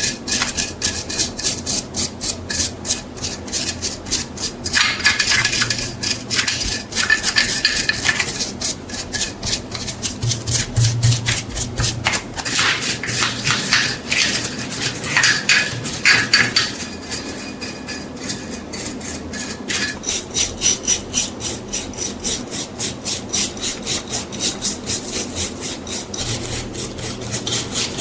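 Rhythmic rasping strokes of hand abrasion, filing or sanding, worked back and forth over a metal part, a few strokes a second with a faint metallic ring in places.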